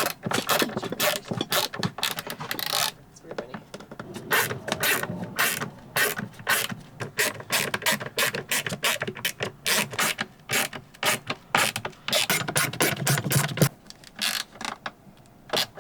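Screws being driven into a wooden drawer face with a screwdriver: rapid runs of ratcheting clicks in several spells, with a short lull about three seconds in and another near the end.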